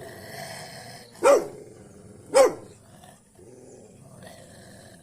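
A dog growling, with two loud barks about a second apart.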